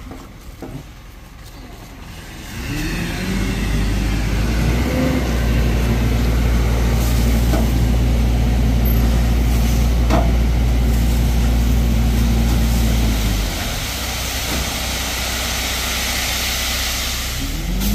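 A motor vehicle's engine revs up about two and a half seconds in, rising in pitch, then runs steadily and loudly. It drops off about thirteen seconds in, and the engine rises again briefly near the end.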